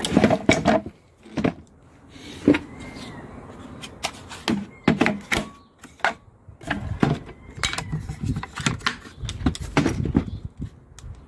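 Irregular knocks and clicks of the Makita 18V site radio and its guard rails and handles being handled, one knock about two and a half seconds in the loudest, with a steadier low rumble of handling through the second half.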